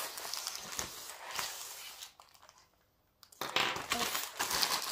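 Inflated plastic bubble packaging crinkling and rustling as it is handled, stopping suddenly about two seconds in and starting again about a second later.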